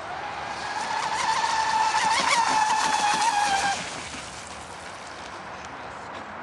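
RC racing boat's motor running at full speed as the boat passes close by: a steady high-pitched whine over the hiss of spray. It grows louder, then drops away sharply about four seconds in.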